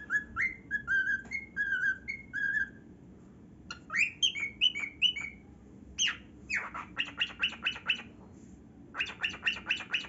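Male grey cockatiel whistling a string of short notes, about two a second, then after a short pause breaking into faster runs of chirps and rapid repeated notes.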